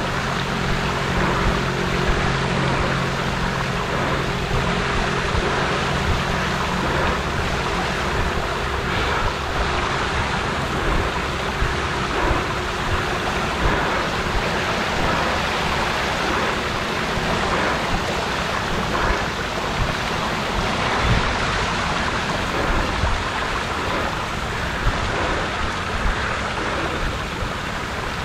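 Recumbent trike wheels ploughing through floodwater, a steady rushing splash of spray, with a low hum alongside through about the first half.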